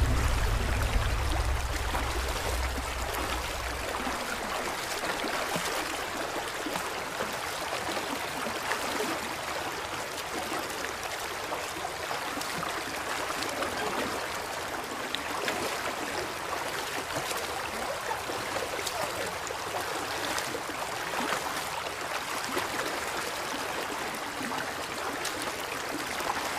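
Shallow rocky stream running and rippling over stones in a steady rush of water. A low rumble fades away in the first few seconds.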